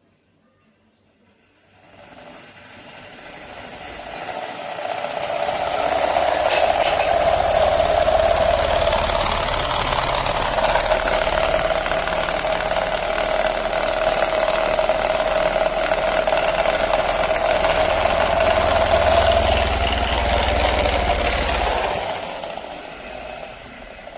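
Max Star 18-inch pedestal fan running. It builds over a few seconds into a steady motor hum with rushing air and a low drone, then fades away near the end.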